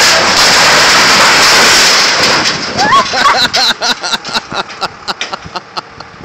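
Sheet-metal awning and its steel frame collapsing: a loud crash and grinding of corrugated metal for about two and a half seconds, then a string of clanks and rattles as the debris settles.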